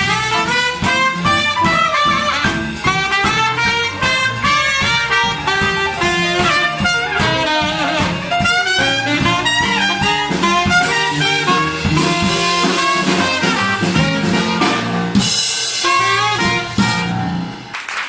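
Small swing jazz band playing live: tenor saxophone and trumpet play together over piano, double bass and drum kit. The sound drops away at the very end.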